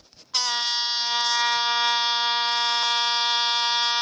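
Novelty sound-effect button playing a steady, buzzy horn tone on one pitch, starting about a third of a second in and held without a break.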